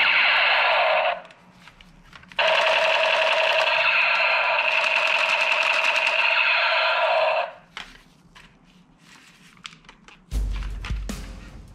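A toy revolver's electronic rapid-fire sound effect from its small speaker. It plays in two stretches, stopping about a second in and then running for about five seconds more. Light plastic clicks follow from handling the toy, and music with drums comes in near the end.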